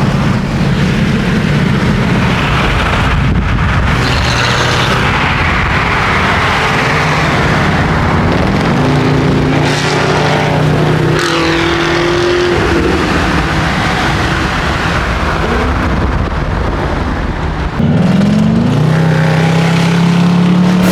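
Car engines accelerating and revving, their pitch climbing about nine seconds in, dropping back, then climbing again in steps near the end, over a steady rushing noise.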